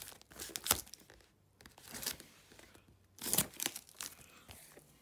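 Folding knife cutting open a cardboard parcel along its taped edge, cardboard and tape tearing and crinkling in irregular bursts, loudest about three seconds in.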